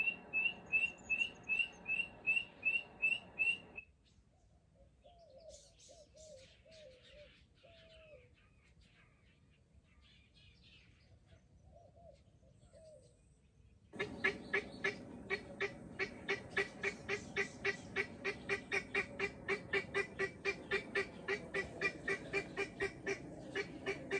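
Helmeted guineafowl cackling: a rapid, even run of harsh repeated notes, about four a second. The run stops about four seconds in, leaving only faint chirps of small birds, then starts again louder about fourteen seconds in.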